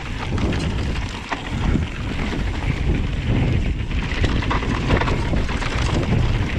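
Wind buffeting the microphone during a ride on a Vitus Sommet full-suspension mountain bike, with tyre noise and scattered rattles and knocks from the bike on rough trail.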